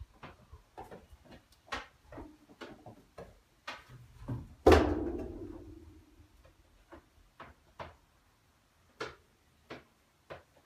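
Goat hooves clicking and tapping on stacked rubber tyres and metal, then about halfway through one loud hollow thud that rings on and fades over about a second and a half as the small goat drops down inside the tyre stack in a metal container; a few more scattered taps follow.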